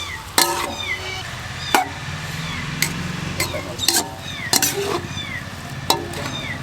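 A spoon knocking against a metal pan or bowl while stirring vegetable spring roll filling, in irregular sharp clinks. Short, high falling chirps repeat in the background over a steady low hum.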